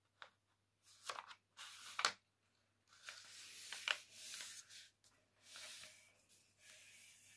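A sheet of paper being folded by hand: crackling and rustling in the first two seconds, with a sharp crackle near two seconds, then longer rubbing sounds as hands slide over the paper to press the crease flat.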